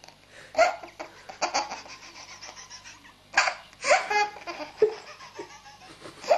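A baby laughing hard in a string of short, breathy bursts. The loudest come just after the start and around the middle.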